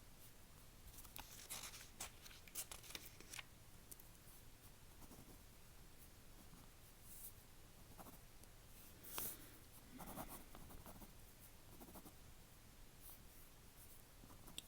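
Pen writing on a paper form: faint, scattered scratching strokes, clustered in the first few seconds, with a sharper tick about nine seconds in.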